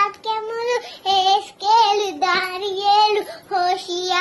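A little girl singing in short phrases of held, wavering notes, with brief breaks between the phrases.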